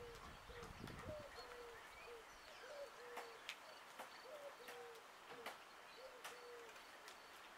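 Faint birdsong: a bird repeating a short low call about twice a second, with higher chirps and a few light clicks.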